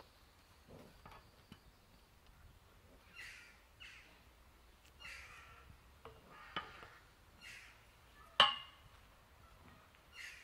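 A bird calling harshly several times, about two seconds apart. About eight and a half seconds in there is one loud, sharp clank with a short ring, the European bison knocking against the metal pipe fence. A smaller knock comes a couple of seconds before it.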